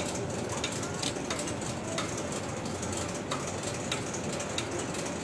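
Steady background noise of a workshop, with sharp clicks at irregular intervals of roughly half a second.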